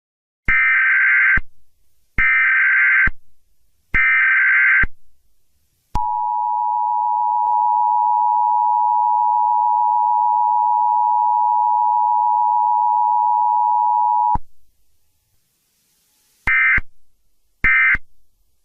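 Emergency Alert System alert signal: three bursts of digital header data of just under a second each, then the two-tone attention signal held steady for about eight seconds. After a short gap, two shorter data bursts come near the end.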